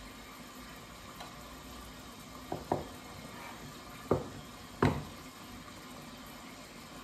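Chef's knife cutting a small avocado and knocking sharply on a wooden cutting board: two quick knocks about two and a half seconds in, then two louder ones about four and five seconds in. Under them, the steady low sizzle of chicken frying in a lidded pan.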